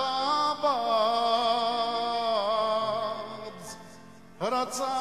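Armenian patriotic fedayi song sung by a man with accompaniment. He holds a long, wavering note that fades away about four seconds in, then starts a new phrase with an upward slide near the end.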